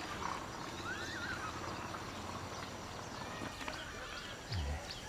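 Outdoor rural ambience with birds chirping and calling now and then, and a single low thump near the end.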